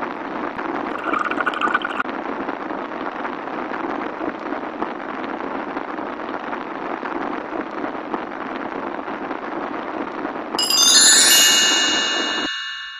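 Steady hiss, then about ten and a half seconds in a bright, glockenspiel-like chime of several high ringing tones that fades away.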